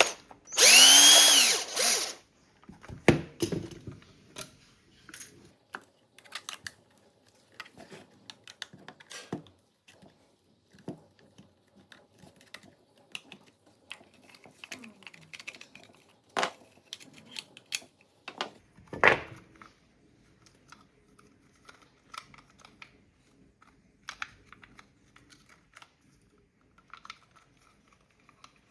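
A small electric drill/driver runs for about two seconds near the start, its pitch rising and then falling as the motor spins up and winds down. Scattered light clicks and taps of parts being handled follow.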